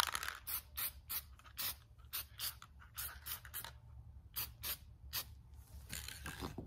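Aerosol can of light oak toner being shaken, its mixing ball rattling in quick sharp clicks, about three a second, with a brief pause just past halfway.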